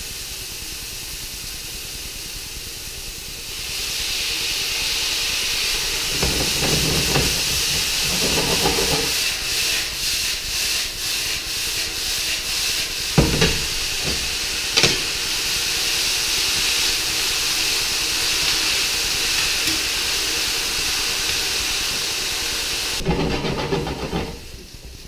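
Stir-fry sizzling in a hot pan, the sizzle growing louder about three and a half seconds in as ramps and nettles go in to sear. A spatula scrapes the pan and knocks against it twice in the middle, and the sizzle drops away near the end.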